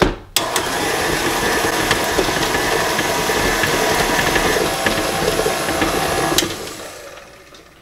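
KitchenAid tilt-head stand mixer running with its flat beater in a stainless bowl of cookie batter. Its motor runs steadily for about six seconds, starting just after a click, then winds down and stops.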